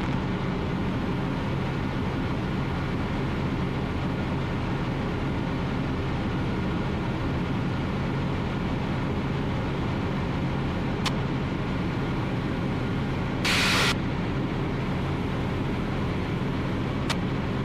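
Ultralight aircraft's engine and propeller droning steadily in cruise flight. A brief burst of hiss comes about three-quarters of the way through.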